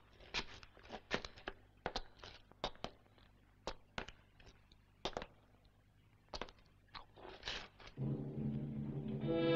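Footsteps on rocky ground: irregular sharp steps, about two or three a second. About eight seconds in, orchestral music with strings comes in.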